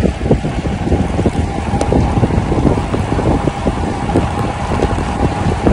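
Wind buffeting a phone's microphone on a bicycle ridden fast: a loud, gusting rumble.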